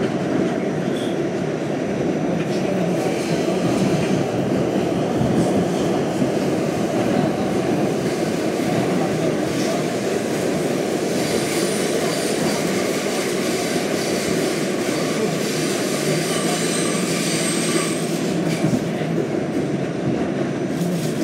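An R68 subway car running, heard from inside the car: a steady rumble of wheels on rail. From about halfway through, a thin, high wheel squeal rises over it for several seconds.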